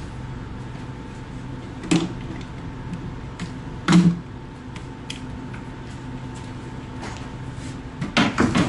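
Birch plywood cabinet doors knocking as they are swung and shut: a sharp knock about two seconds in, a louder one about four seconds in, and a quick run of knocks near the end.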